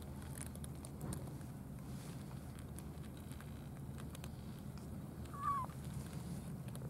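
Cats eating from food trays: faint scattered ticks and crunches over a steady low background hum. One short, slightly bending call sounds about two-thirds of the way through and is the loudest sound.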